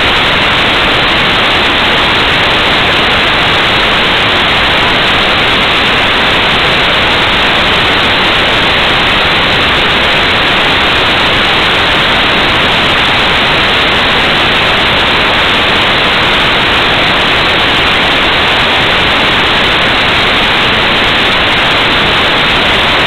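Loud, even static hiss from a cheap 808 keychain camera's audio, with no motor whine or other event in it.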